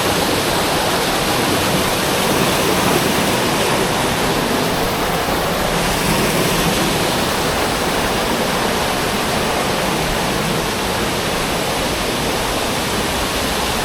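Waterfall close by: falling water rushing loud and steady.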